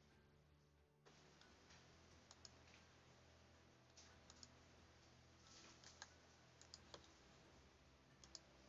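Near silence: a low room hum with faint, scattered clicks of computer input at a desk, a dozen or so, irregularly spaced.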